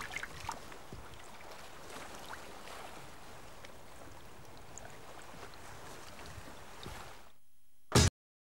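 Faint, steady water ambience with a few small clicks. It drops away about seven seconds in, and a brief loud thump follows.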